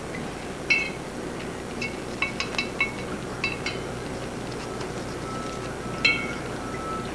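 A clock's count wheel clinking against the inside of a small glass cup as it is rinsed: scattered sharp, glassy clinks, most of them in the first four seconds and one more about six seconds in.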